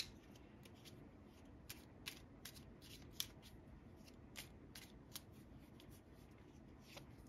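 Faint, irregular clicks and snaps of tarot cards being handled and shuffled, about a dozen spread over several seconds, with one sharper click right at the start.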